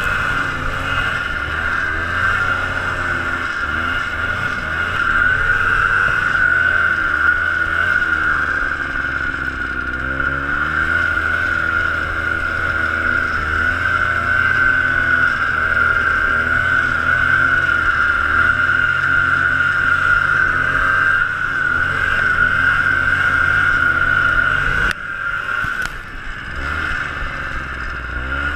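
Ski-Doo Tundra 250 LT snowmobile's two-stroke engine running under load through deep snow, its pitch rising and falling with the throttle, with a steady high whine over it. The engine note drops off briefly a few seconds before the end, then picks up again.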